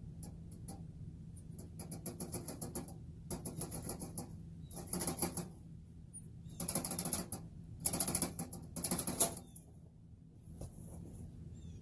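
A skunk's claws scrabbling on the wire mesh of a cage live trap as it crosses into a second trap, making the traps rattle. The rapid clicking comes in several bursts, the loudest near the end.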